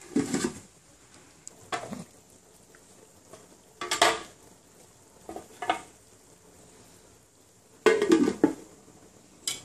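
Large aluminium stockpot lid being handled: lifted off and set back on the pot, giving short metallic clanks and scrapes. The clearest clank is about four seconds in, and a cluster of knocks comes about eight seconds in as the lid goes back on.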